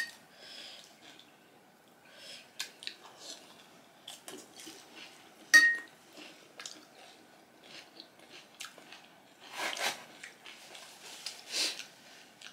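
Pani puri being eaten: crisp puri shells crunched and chewed. Two sharp clinks of spoons against the porcelain bowls, one at the start and one about five and a half seconds in.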